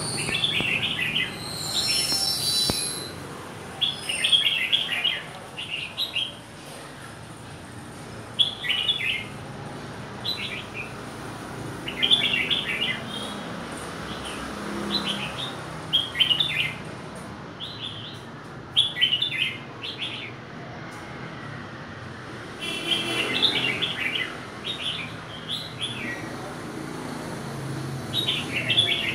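Caged red-whiskered bulbul, newly through its moult, singing short chirpy phrases, one every second or two.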